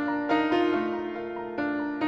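Background music led by piano, with notes struck in a slow melody.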